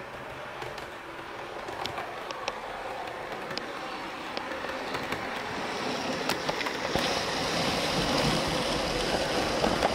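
HO-scale model KiHa 20 diesel railcar with a two-axle boxcar running along the track toward and past the microphone: a steady rolling hum with scattered sharp clicks from the wheels on the rails. It grows louder as the train nears, loudest about eight seconds in as it passes close by.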